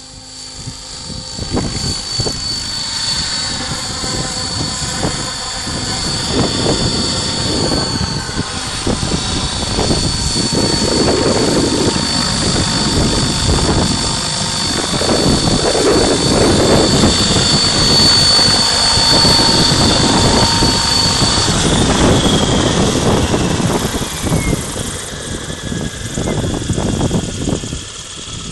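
Mikado Logo 800 Xxtreme electric RC helicopter flying close: a high steady motor and gear whine over the whoosh of its rotor blades, growing louder during the first seconds. About twenty-two seconds in, the whine falls in pitch and fades as the rotor spools down after landing.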